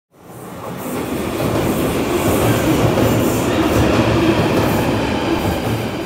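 A London Underground tube train coming out of the tunnel into the platform: a loud, steady rumble and rattle of wheels on track that builds over the first second.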